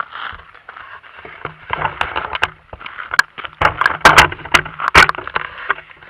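Camera handling noise as the camera is adjusted and turned on its mount: a run of loud, irregular knocks, clicks and scrapes right at the microphone, thickest in the middle.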